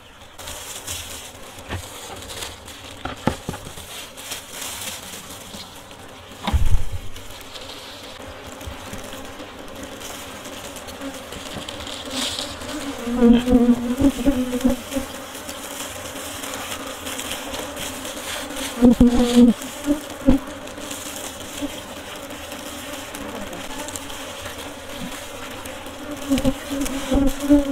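Honey bees buzzing around an opened log hive as its comb is cut out: a steady drone that swells louder about 13 and 19 seconds in. A dull thump about six and a half seconds in.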